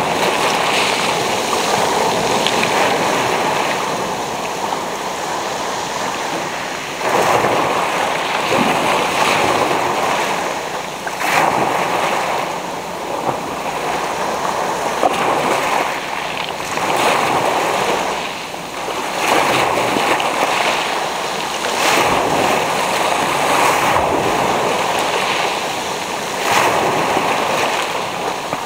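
Small waves breaking and washing up a pebble beach, the foaming water rushing over the stones in surges every few seconds.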